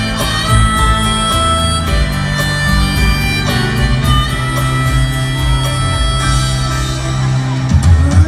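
Live rock band music, with a harmonica playing long held notes over the band.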